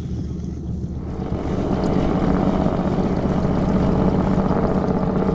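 Boat's outboard motor running steadily at slow trolling speed, a low even hum that gets louder about a second in.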